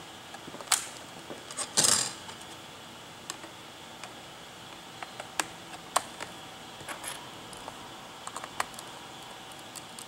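Sharp clicks as a laptop RAM module is pressed down into its memory slot, the loudest a short cluster of snaps and rattles about two seconds in. Scattered light taps and ticks follow as the memory-bay cover is fitted back onto the laptop's underside.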